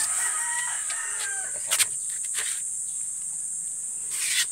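A rooster crowing once, over a steady high chirring of insects. A sharp double click comes about two seconds in, and a short rustle just before the end.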